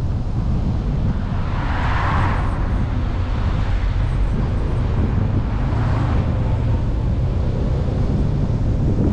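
Steady low rumble of a car driving, with wind noise on the microphone, and two oncoming cars whooshing past: one about two seconds in and another around six seconds in.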